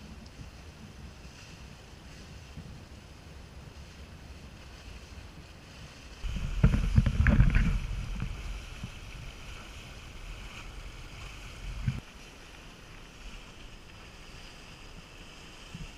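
Wind buffeting the microphone and water rushing past the hull of a sailing yacht under way, with a loud burst of buffeting about six seconds in. The sound drops abruptly to a quieter, steady rush about twelve seconds in.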